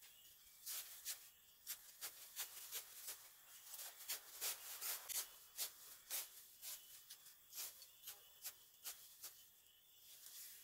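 Dry grass, leaves and twigs crackling and rustling under a person's hands, a run of short irregular snaps that starts about a second in and thins out near the end.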